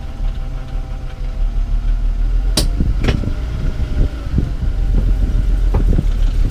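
BMW E36 M3 engine running as the car moves off, with a steady low rumble. Several sharp clicks and knocks come in from about two and a half seconds in.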